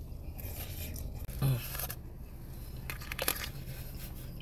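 Close-up mouth sounds of a person chewing a mouthful of loaded fries with rice and beans: wet, crackly chewing in irregular bursts, with a short voiced "mm" about one and a half seconds in.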